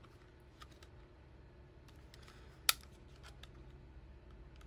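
Light metallic clicks from a Steyr M9-A1 pistol frame as its newly reinstalled safety lever is worked, with one sharp click about halfway through.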